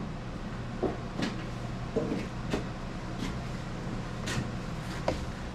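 Scattered light knocks and clicks, about seven, spread over a few seconds as metal parts are handled and moved on the work. A steady low hum runs underneath.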